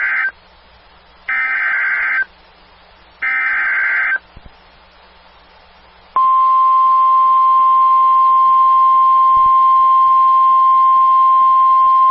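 Emergency Alert System SAME header: a data burst ends, then two more harsh, buzzy digital bursts about a second long sound two seconds apart. After a short pause, a single steady high tone begins about six seconds in. This is the NOAA Weather Radio 1050 Hz warning alarm tone, which announces that a warning message follows.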